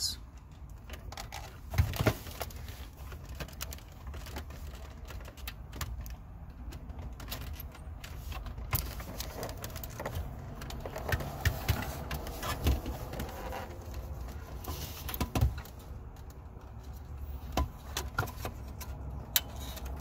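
Wiring-harness plugs being worked off the back of a Chrysler Crossfire factory CD player: scattered plastic clicks and knocks, with the metal radio case rattling in the hands, over a low steady rumble.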